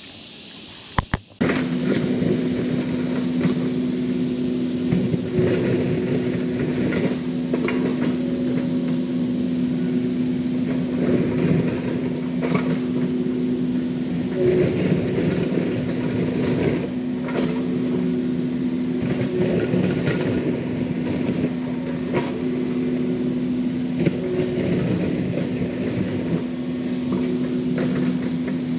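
Mini excavator's diesel engine running steadily under load, starting about a second in, while the bucket scrapes and drags soil, with occasional knocks.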